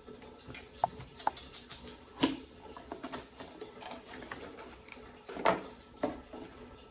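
Box and packaging handled during an unboxing: scattered light clicks, knocks and brief rustles, with two louder knocks about two seconds in and again about five and a half seconds in.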